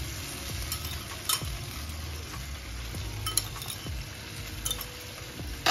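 Sauce sizzling in a wok while a metal spatula stirs it, with a few sharp clicks of the spatula against the pan.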